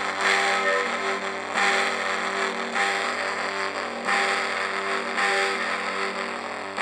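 Two church bells ringing, struck about once a second, each stroke ringing on into the next so that their tones overlap.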